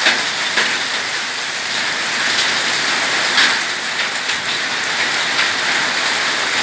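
Heavy storm rain pouring down in a steady hiss, with many sharp splatters of drops hitting surfaces.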